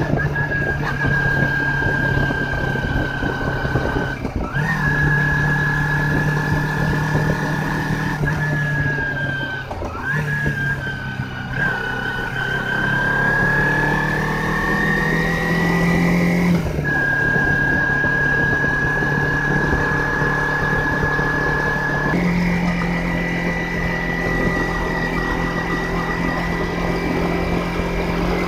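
Motorcycle engine running on the move, its note holding steady and then stepping or gliding up and down several times as the rider changes throttle and gear.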